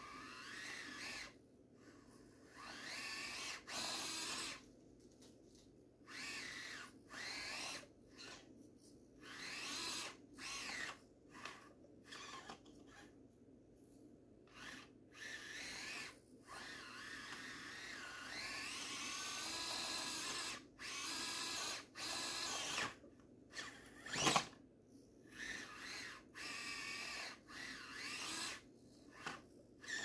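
Axial SCX24 micro RC crawler's small electric motor and geared drivetrain whining in many stop-start throttle bursts as it crawls over rock, some bursts a few seconds long with the pitch rising. A single sharp knock about two thirds of the way through.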